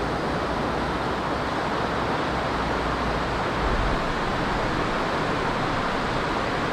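Steady rush of river water running over stones, an even hiss with no breaks.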